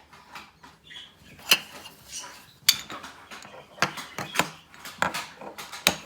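Plastic magnetic toy pieces clicking as connector rods are snapped onto balls and handled, about half a dozen sharp, irregularly spaced clicks.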